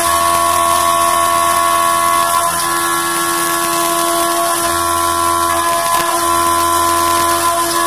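CNC milling machine's end mill cutting aluminium under flood coolant: a steady whine of spindle and cutter over the hiss of coolant spray, with a brief break about six seconds in.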